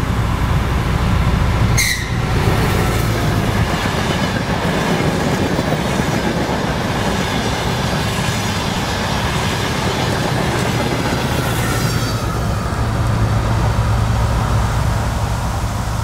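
DR1A diesel multiple unit passing at speed close by: steady diesel engine rumble and wheels running on the rails, with a whine that slowly falls in pitch as the train goes by. The engine rumble grows louder again near the end as the rear power car passes.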